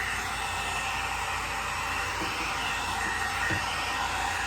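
Electric hot-air rotating hair brush running, blowing air with a steady rushing hiss and a faint high whine.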